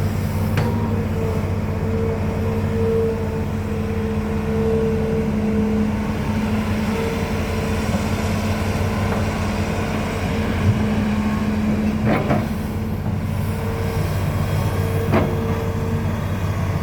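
Hitachi Zaxis 210F excavator's diesel engine running steadily, with a few short knocks: one just after the start, one about twelve seconds in and one about fifteen seconds in.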